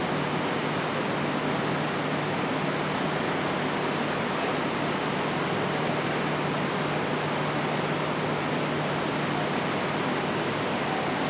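A steady, even rushing noise with a constant low hum underneath, unchanging throughout.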